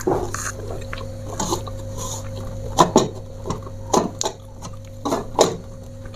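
Handling noise: scattered soft knocks and rustles, about seven in all, as the person moves and reaches at the table with a lapel mic on, over a steady low electrical hum.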